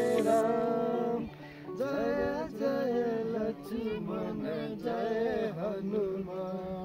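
Music: a devotional song, a voice singing in short wavering phrases over a steady held instrumental backing.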